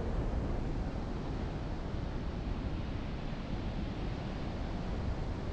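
Steady wind noise from airflow rushing over a GoPro Hero 9 Black's microphone in paragliding flight.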